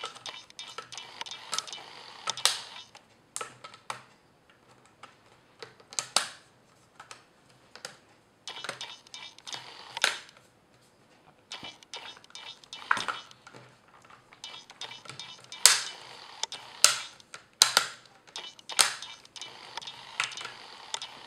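Plastic screen bezel of a Sony VAIO laptop being pressed back onto the lid, its clips snapping into place in a string of irregular sharp clicks, with four louder snaps close together near the end.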